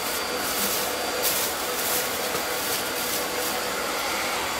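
Thin plastic grocery bag rustling and crinkling in irregular bursts as it is handled and opened. Under it runs a steady, even rushing noise, like a fan or air conditioner.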